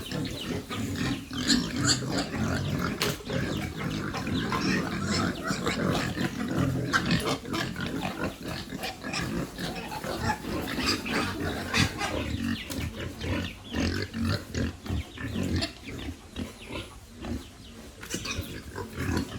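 Pigs grunting and snuffling together, a busy overlapping mix with scattered clicks and knocks, thinning out after about two-thirds of the way through.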